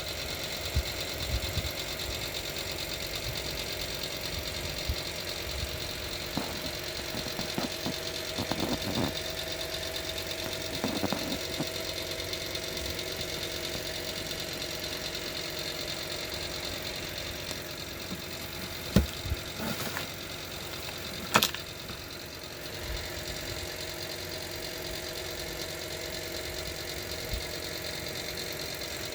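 Panasonic NA-F65B5 washing machine running with a steady motor hum, with two sharp knocks about two-thirds of the way through.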